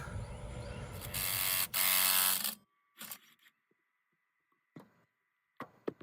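A power tool runs on the starter's mounting bolts, rattling at first and then louder with a motor whine. It stops abruptly about two and a half seconds in, followed by a few faint clicks.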